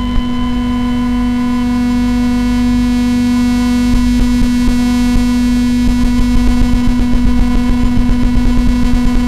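Light pick-up turning flickering LED light into sound: a steady, noisy electric buzz built on a strong low hum tone with fainter higher tones. About four seconds in, fast clicks join it and grow into a regular pulsing of roughly three beats a second.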